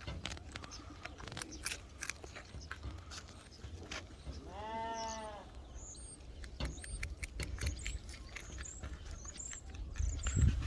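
Coypu crunching a raw carrot: a run of crisp, irregular bites and chews. About halfway through, one bleat-like animal call lasts about a second, rising and then falling in pitch. Faint high chirps come later.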